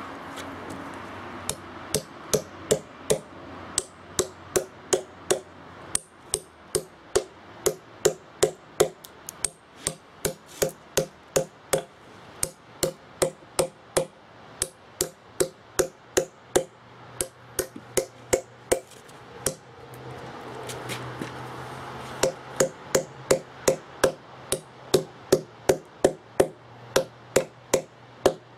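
Steel wedges and feathers set in drilled holes in a PA bluestone slab, struck one after another with a hammer: sharp ringing metal-on-metal strikes about two or three a second, broken by a few short pauses. The wedges are being driven in turn to split the slab.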